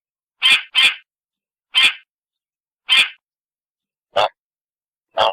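Domestic goose honking: about six short, harsh calls, spaced roughly a second apart, two of them in quick succession near the start.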